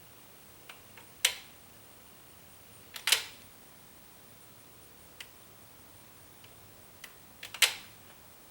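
A few sharp, short mechanical clicks against a quiet background: three louder ones about a second in, about three seconds in and near the end, with fainter ticks between them.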